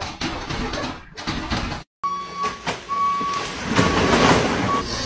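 About two seconds in, a forklift's warning beeper starts sounding in repeated half-second beeps over the machine's hum. Near the end, cardboard boxes tumble off its raised load with a loud crashing clatter.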